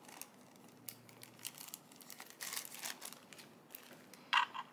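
Small clear plastic packets of diamond painting drills crinkling as they are handled, in scattered short bursts, the loudest near the end.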